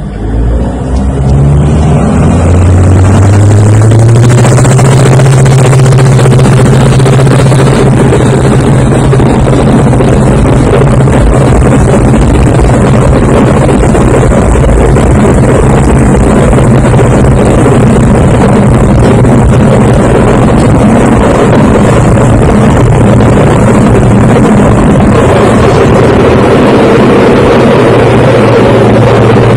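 Diamond DA40 light aircraft's engine and propeller, heard from inside the cabin, run up to full power over the first two to three seconds, rising in pitch, then hold a loud steady drone through the takeoff roll.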